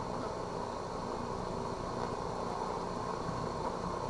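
Strong wind buffeting a handheld VHS camcorder's microphone: a steady rushing noise.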